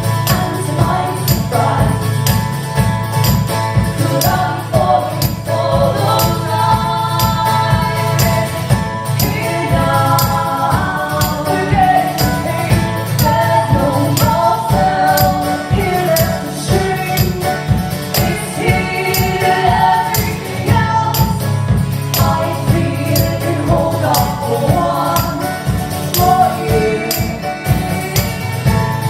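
Live band performance: sung vocals in harmony over a steady percussive beat.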